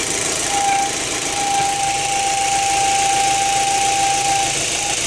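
Rover 25's 1.6 K-series four-cylinder petrol engine idling steadily. A thin steady whistle runs alongside it and stops near the end.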